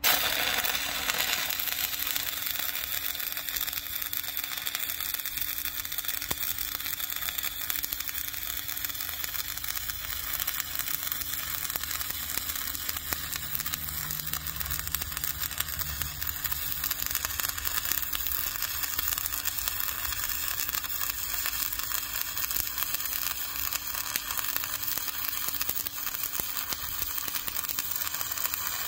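Stick-welding arc burning a 5/32-inch 7014 electrode: the arc strikes suddenly at the start, then burns with a steady sizzle as the bead is run.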